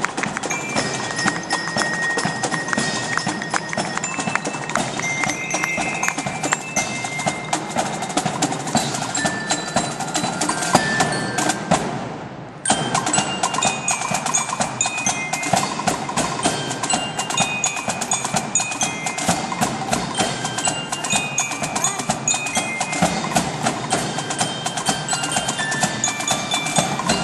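Marching jazz band playing: rapid drumbeats with short ringing glockenspiel notes over them. The music dips and breaks off briefly about twelve seconds in, then carries on.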